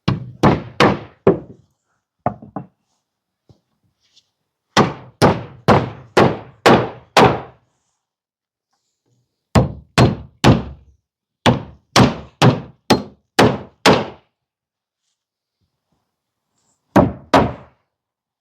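Hammer driving nails through wooden battens into the wall framing: six bursts of two to seven blows, each blow about half a second apart, with short pauses between bursts.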